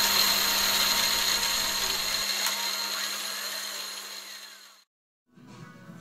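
A milling cutter on a milling machine machining a brass block square: a steady mechanical whir with a high whine and cutting noise. It fades out over the next few seconds and stops just before 5 s, and quiet background music comes in near the end.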